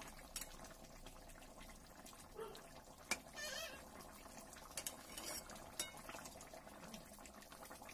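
Thick curry of dried churi fish, eggs and potatoes simmering in a pan: faint bubbling, with a spatula scraping and clicking against the pan now and then, one sharp click about three seconds in.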